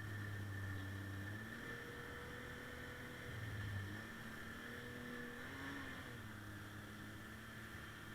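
A 2021 Arctic Cat M7000 snowmobile's engine running, its note shifting up and down a few times as the revs change.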